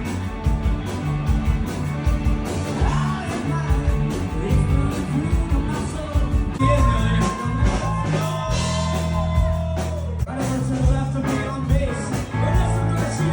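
Rock band playing: drums, bass and guitar with a singer, with held sung notes about two-thirds of the way through.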